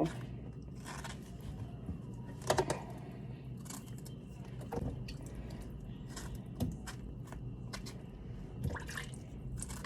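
A knife cutting strawberries, with a few soft knocks and taps on the cutting board, over a low steady hum.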